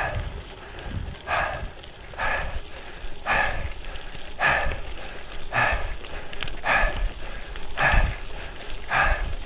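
Cyclist breathing hard during a hard climbing effort: a forceful exhale about once a second, with wind rumble on the microphone.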